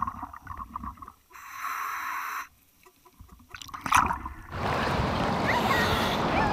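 Muffled underwater sounds of a scuba dive in a river, with a short stretch of bubbling noise and a near-silent moment, then a splash as the camera breaks the surface about four seconds in. After that comes a steady rush of water noise.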